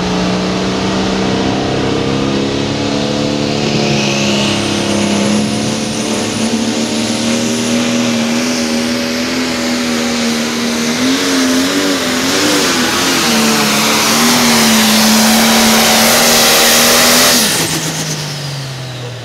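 Light-limited pro stock pulling tractor's turbocharged diesel engine running at full throttle under load during a pull, with a high turbo whistle rising in over it and the engine pitch wavering briefly past the middle. Near the end the throttle is chopped and the engine winds down.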